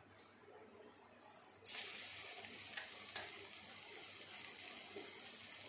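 A portion of gram-flour batter with sliced onion and potato drops into hot oil about a second and a half in, and the oil sizzles steadily around it as it deep-fries, with a few pops.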